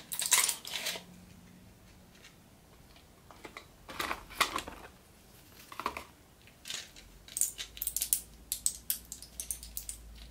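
Crackling and clicking of a cardboard medicine box being opened and a foil blister pack of tablets being handled, in short separate bursts. Toward the end comes a run of quick crinkling clicks as a tablet is pressed out through the foil.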